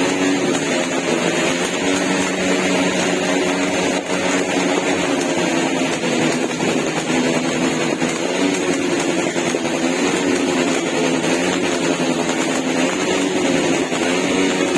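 Golden Rooster Mini Gatlin 288-shot firework cake firing shots in rapid, unbroken succession, a loud steady rattle with no pauses.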